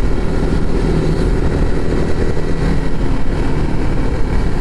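Motorcycle riding at steady speed: engine hum under a constant low wind rumble.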